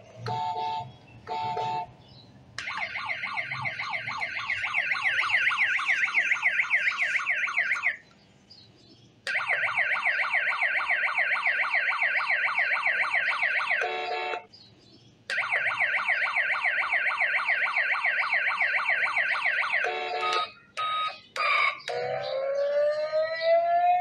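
Electronic siren sound effect from a toy steering-wheel RC remote's built-in speaker: two short beeps, then three bursts of about five seconds each of fast warbling, like a car alarm, with short gaps between them. Near the end, other electronic beeps and rising tones play.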